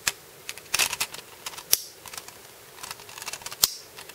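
Hard plastic parts of a Tamiya Mini 4WD kit clicking and clattering as they are handled and fitted together, with several sharp snaps about a second apart among lighter taps.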